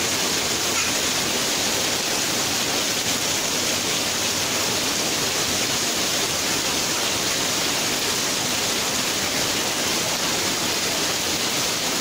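Heavy rain falling and pouring off roof edges in streams: a steady, even hiss with no thunder.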